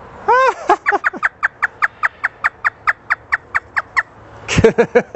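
African grey parrot doing its imitation laugh. One rising-and-falling whoop is followed by a fast, even run of short falling 'ha' notes, about five a second for some three seconds.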